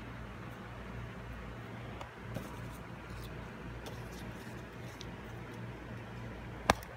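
Room tone with a steady low hum, a few faint taps, and one sharp click near the end.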